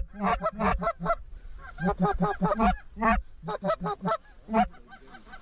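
Goose honking: many short honks in quick succession, several a second, broken by a couple of brief pauses.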